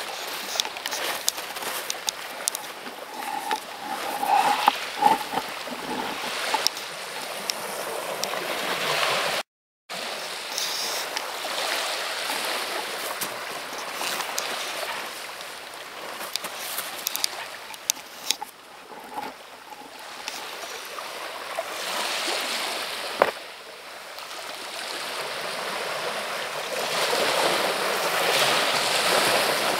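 Sea surf washing over a pebble beach, a steady hiss that swells and fades, with a brief gap of silence about ten seconds in.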